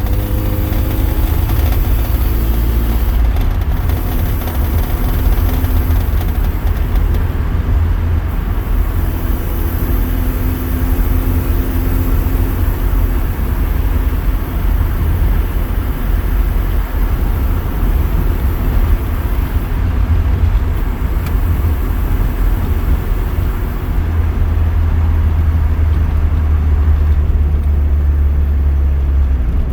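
Car engine and road noise while driving, a steady low drone with faint engine tones that rise and fall slightly.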